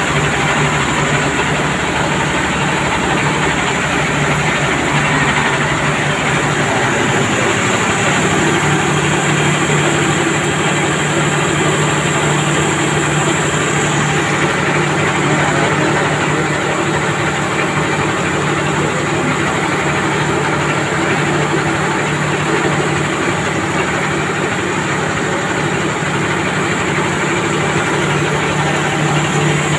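Rice milling machine running: a loud, steady mechanical drone with a constant low hum.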